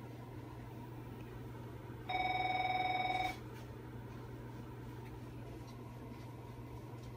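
A steady low electrical hum, with a warbling electronic tone, like a phone ringing, sounding once for about a second about two seconds in.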